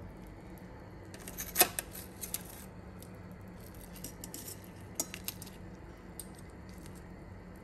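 Light clinks and clatter of kitchen utensils in two short spells of handling, the loudest a sharp clink about one and a half seconds in, over a steady low hum.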